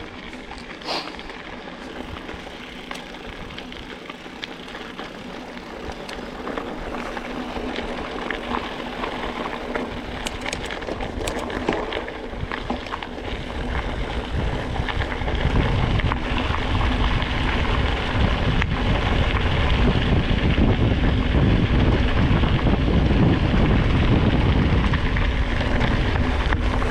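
Wind buffeting the microphone of a mountain biker's action camera, with tyre and trail noise and a few sharp clicks, growing much louder about halfway through as the bike picks up speed.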